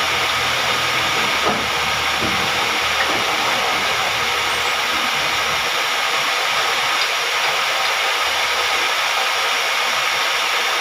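A steady, even hiss with a faint low hum underneath that drops away about halfway through.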